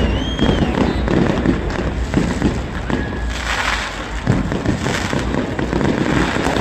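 New Year fireworks going off without a pause: many overlapping bangs and crackles, with a hissing burst a little past halfway.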